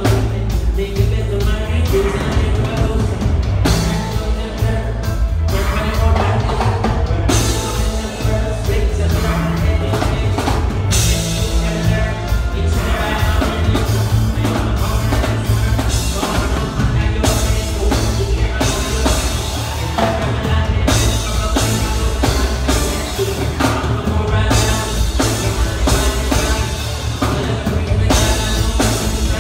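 Live reggae band playing, with a male singer singing into a microphone over heavy, steady bass and a drum kit.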